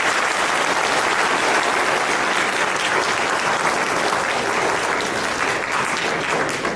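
Audience applauding: steady clapping from many hands in a large hall, which starts just before and begins to fade near the end.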